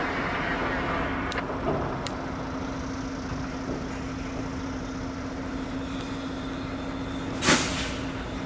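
A steady low vehicle hum with even background noise, and a short loud rush of noise about seven and a half seconds in.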